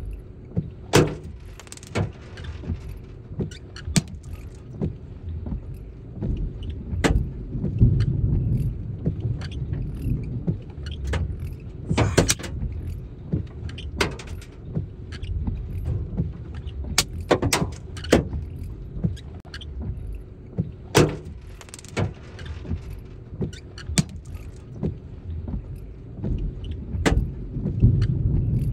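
Wind buffeting the microphone in uneven gusts, with sharp clicks and taps every second or two.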